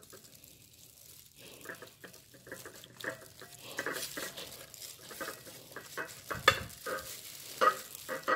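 A knife slicing down through a peeled Cayenne pineapple, with wet, crackly crunching of the juicy flesh and the crinkle of plastic gloves. There are a few louder cracks in the last couple of seconds as the fruit is split apart.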